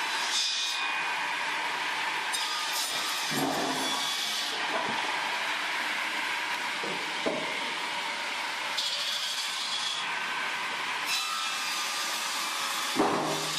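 Wood being cut by a machine: a steady grinding, sawing noise with louder surges as it bites into the wood, and a sharp knock near the end.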